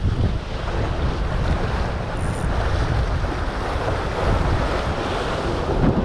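Strong wind buffeting the microphone over choppy sea waves washing and splashing against the concrete breakwater stones.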